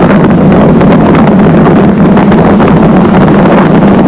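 Strong wind buffeting the microphone, a loud, steady roar with no pauses.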